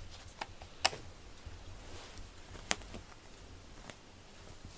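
A cat playing with a string toy on a quilted mat: a few sharp taps and clicks, about four in all, the loudest about a second in and near three seconds, over a low steady rumble.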